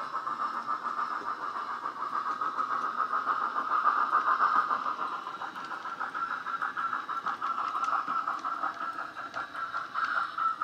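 Hornby K1 model steam locomotive's DCC sound decoder playing the Wheeltappers steam sound file through a small speaker in the tender: steady steam-engine running sound with hiss and a regular beat, thin and centred in the mid range as from a tiny speaker, loudest about four seconds in.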